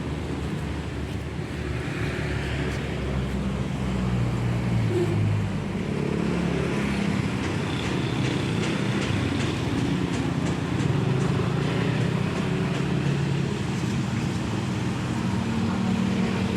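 Steady road traffic noise, with motor vehicles running and passing.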